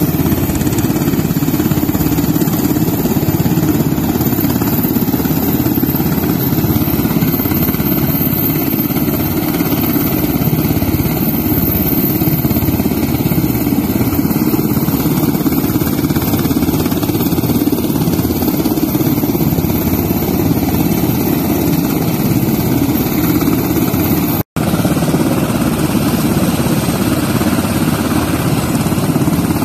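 Black Hawk helicopters running on the ground with main rotors turning: a steady, loud drone of rotors and turboshaft engines. The sound cuts out for an instant about 24 seconds in.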